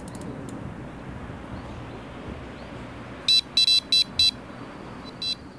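Electronic carp bite alarm on a rod pod beeping five times in quick succession, set off as the angler's hand works the rod and line at the alarm head.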